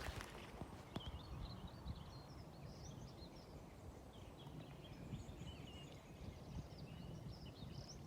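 Small birds singing, a run of quick chirps and trills, faint over a steady low rumble.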